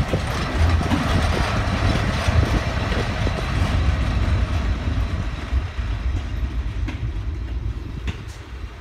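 Swiss Ae 6/6 six-axle electric locomotive running past close by and moving away, its wheels and running gear giving a low rumble that fades in the second half, with a few sharp clicks near the end.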